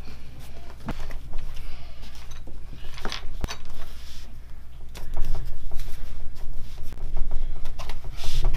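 Foam-backed headliner cloth being stretched and pressed by hand onto a rubberized console lid: rustling and rubbing of cloth and foam with scattered small clicks and taps, one sharper click about three and a half seconds in, over a steady low hum.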